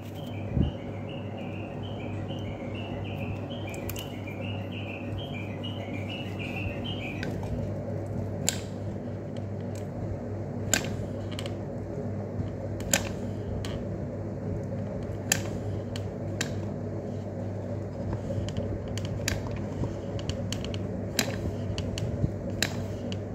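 Sharp clicks roughly every two seconds from hot glue gun work, over a steady hum. A run of rapid high chirps fills the first seven seconds.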